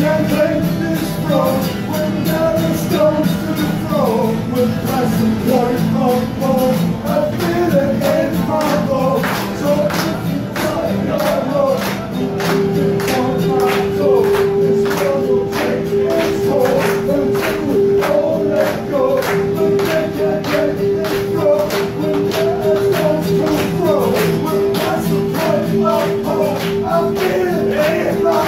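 Live rock band playing a song. The drum kit keeps a steady, bright percussion beat under moving melodic lines, and a long held note comes in about twelve seconds in and sustains.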